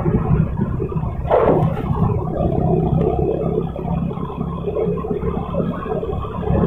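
Motorcycle engine running steadily while riding, mixed with wind and traffic noise. There is a short rush of noise about a second and a half in.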